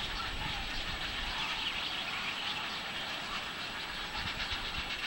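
Many nestling birds calling together from the nests of a tree-top rookery, a continuous dense mass of calls with no break, over low wind rumble on the microphone.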